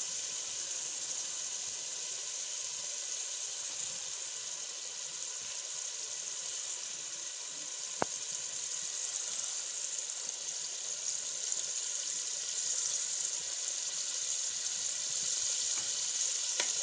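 Spiced onion masala with a little water sizzling and simmering in a cooking pot: a steady hiss, with one sharp click about halfway through.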